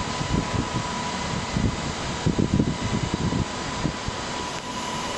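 Steady fan-like machine noise with a constant thin whine, under irregular low bumps.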